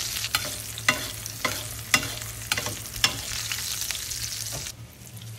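Butter sizzling around a ribeye in a carbon steel pan while it is spoon-basted, the spoon clicking against the pan about twice a second. The sizzle falls away near the end as the steak is lifted out.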